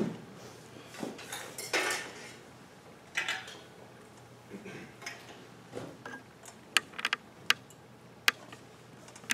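Quiet room with scattered rustling, then a handful of sharp, clinking clicks in the last few seconds.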